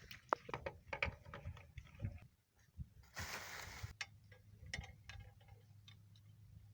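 Light irregular clicks and taps of hand tools working on engine parts, with a short burst of hiss a little after three seconds in.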